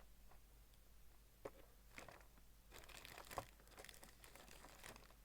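Faint rustling and crinkling of plastic parts packaging, with a few light clicks, as model kit pieces are rummaged through.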